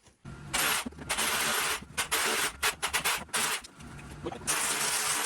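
A power tool cutting into rough stonework, run in bursts: one long burst, then several short ones, then another long burst near the end.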